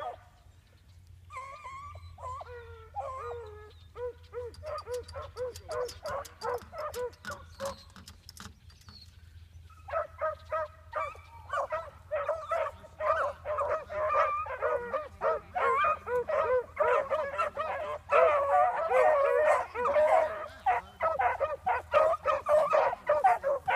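A pack of beagles baying on a rabbit's scent trail. A few voices call at first, and about ten seconds in the rest of the pack joins in, louder and overlapping.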